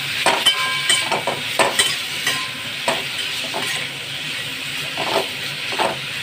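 A metal spatula stirs strips of pointed gourd (parwal) in a pan of hot oil, tossing them to coat them with turmeric. The oil sizzles steadily under irregular scrapes and clinks of the spatula against the pan, which come more often in the first half.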